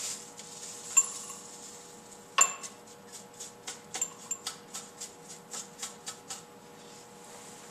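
Small clinks and taps of a metal spatula and plastic weigh boat against a glass beaker as crushed salt is tipped in. Two sharper clinks come in the first few seconds, then a run of light quick taps, about three or four a second.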